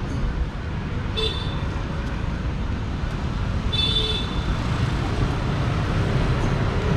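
City street traffic: a steady low rumble of passing cars and motorbikes, with two brief high-pitched squeaks, one about a second in and one around four seconds.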